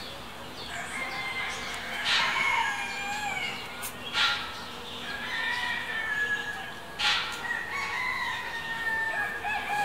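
Roosters crowing in long, overlapping calls that slowly fall in pitch, with short harsh calls about two, four and seven seconds in.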